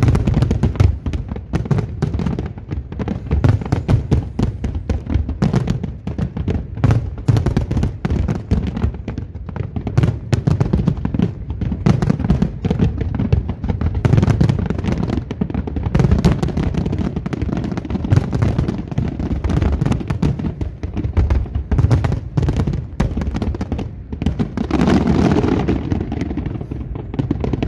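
Large aerial fireworks display: a rapid, continuous barrage of shell bursts and crackle with deep low booms, stopping just before the end.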